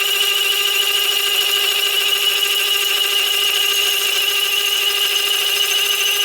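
Tool-post-mounted saw on a metal lathe cutting steadily into a shaft to part off a thin washer: an even, unbroken machine whine with a strong high tone over a lower one.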